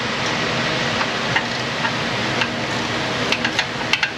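Steady shop background noise with a faint hum, and about five scattered sharp clicks and taps of metal tools, mostly in the second half.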